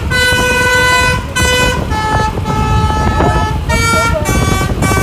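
Basuri "pianika" telolet multi-tone bus horn playing a tune: a run of held notes, each at a different pitch, over a low rumble.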